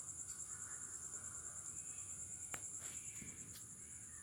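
Steady, high-pitched insect chirring, a fast even trill like crickets, with a single faint click about two and a half seconds in.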